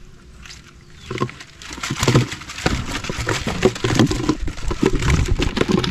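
Water splashing and irregular slaps as tilapia tangled in a nylon gill net are worked into a plastic bucket of water. The net rustles and the fish flap. The splashing starts about a second in and keeps up densely.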